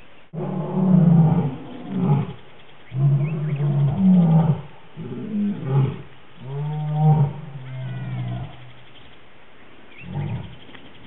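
Lion roaring: a run of deep, drawn-out calls of about a second each, then one shorter call near the end. A few faint high chirps sound between the calls.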